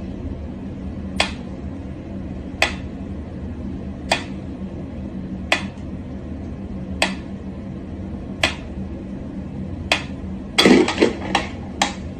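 Mechanical pyramid metronome ticking slowly, one sharp tick about every one and a half seconds. About ten and a half seconds in, a louder quick clatter of several knocks and clicks.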